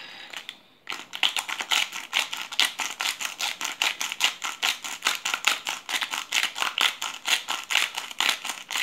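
Hand-turned glass pepper mill grinding black peppercorns: a fast, even run of crunching clicks that starts about a second in.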